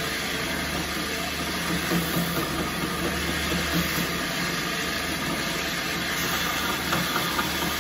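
A 2x72 belt grinder running, its sanding belt grinding the machete's handle slabs to shape: a steady motor hum under a broad, even sanding hiss.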